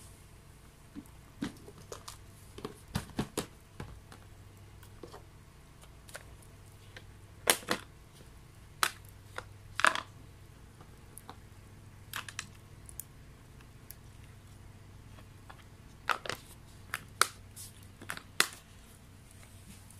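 Wet wood burning in a homemade secondary-combustion stove, crackling with irregular sharp pops, a few of them much louder than the rest.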